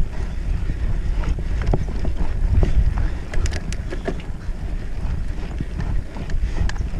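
Wind buffeting the microphone of a mountain bike's handlebar camera as the bike rides a dirt singletrack, a steady low rumble, with scattered clicks and rattles from the bike over the rough ground and a quick run of sharp clicks about three and a half seconds in.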